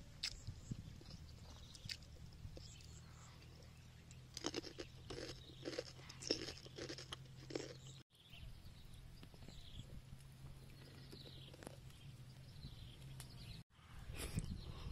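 A boy chewing food with his mouth open, with wet smacking clicks that come thick and fast in the middle. The sound is faint and is cut off abruptly twice.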